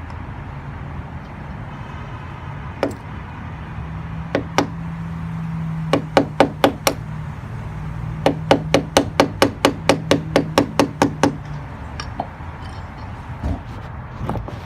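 Hammer striking an old broken file used as a punch to drive the old brass thru-hull out through the boat's transom. First a single blow, then two, then four quick ones, and finally a rapid run of about a dozen taps, with a low steady hum underneath.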